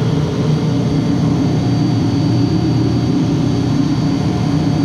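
Steady drone of running machinery in a chilled-water plant room: a low, even hum with a faint high whine held over it.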